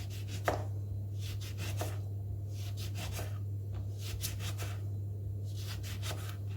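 Kitchen knife slicing lemons: short cutting strokes that come in small groups every second or so.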